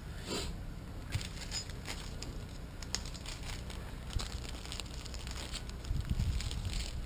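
Small clear plastic bag of washers and lock nuts crinkling as it is handled in the hands, with scattered short sharp clicks.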